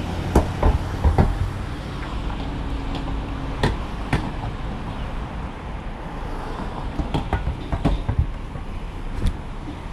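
Bicycle rattling and knocking irregularly as it is ridden, over a steady low rumble of road traffic.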